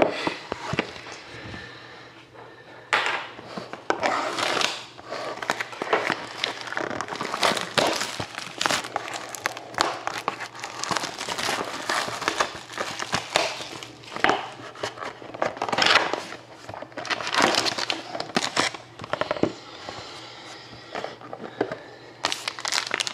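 Plastic shrink-wrap being torn and crinkled off a sealed trading-card box: an irregular run of crackling and rustling, quieter for the first few seconds and then nearly continuous.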